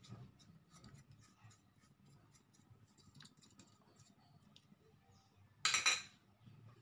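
Faint clicks and rustles of a small plastic dish and fingers as salt and seasoning powder are tapped off it into a pan, with a short, louder burst of noise near the end.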